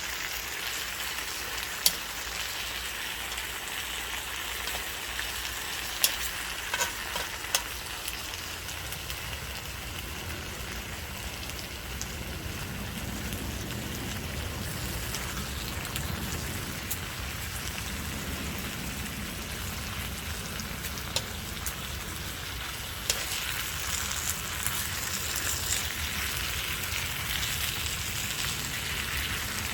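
Dakgalbi (spicy chicken pieces) sizzling and frying in a pan, a steady crackling hiss with a few sharp clicks early on. A low rumble joins about a third of the way in, and the sizzle grows louder and more crackly near the end.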